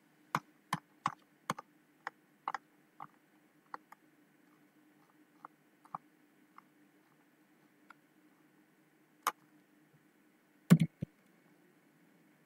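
Irregular sharp clicks of a computer mouse and keyboard: a quick run of about eight clicks in the first four seconds, then sparse ones, with a louder, deeper knock a little before the end, over a faint steady hum.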